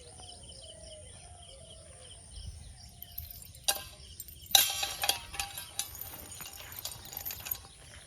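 Faint chirping at first, then a sudden clatter of clinks and taps about three and a half seconds in, loudest a second later, thinning into scattered ticks.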